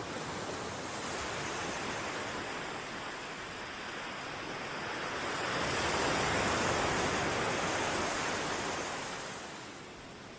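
Ocean waves breaking and washing on a shore, a steady rush that swells to a peak about two-thirds of the way through and then recedes.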